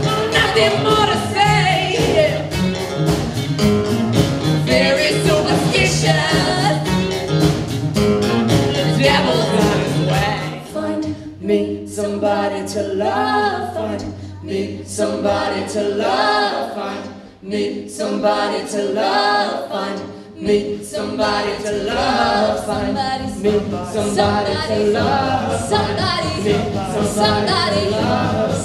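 Live band with several singers performing a song on stage, backed by horns, electric guitar, bass and drums. About ten seconds in, the drums and bass drop away and the voices carry over a held low note. The full band comes back in about ten seconds later.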